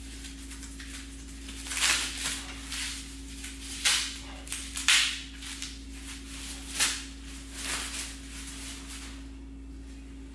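Packaging rustling and parts being handled while exhaust brackets are unpacked, a run of short rustles a second or so apart that thin out near the end. A steady low hum runs underneath.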